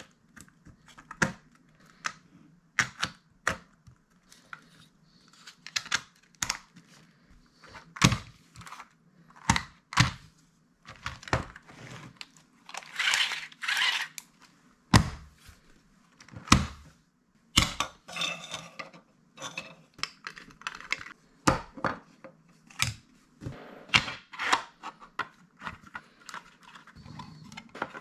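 Rapid, irregular clicks and knocks of hard 3D-printed plastic parts being handled, fitted together and set down on a wooden floor, with a few longer scraping, rustling stretches in the middle.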